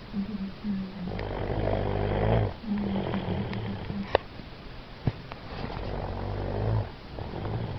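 A man snoring heavily in his sleep: two long, rasping snores about four seconds apart, with shorter higher-pitched breathing sounds between them and a couple of sharp clicks.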